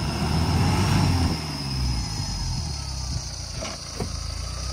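Mahindra Thar's engine running and revving up and back down about a second in, while the stuck vehicle is still in two-wheel drive. Two sharp clicks near the end.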